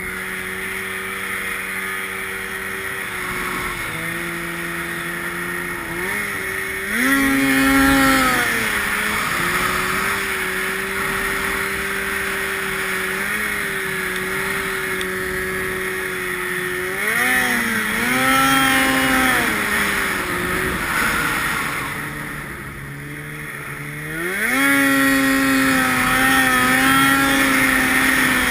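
Snowmobile engine running along at a steady pitch, with wind and track hiss. The revs climb three times as the throttle opens: about a quarter of the way in, again past the middle, and, after a short easing off, a last climb that holds high near the end.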